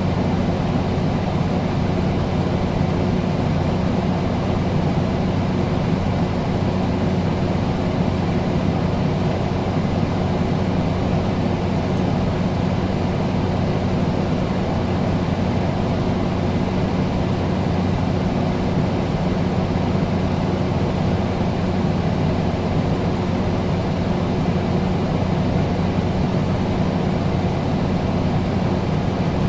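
Air conditioner running steadily: an even rush of air over a low, constant hum.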